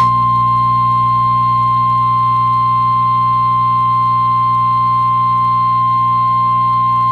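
Emergency weather alert tone, the single steady 1050 Hz warning alarm tone of NOAA Weather Radio relayed over a radio broadcast, held unbroken over a low hum. It signals that a weather warning message is about to be read.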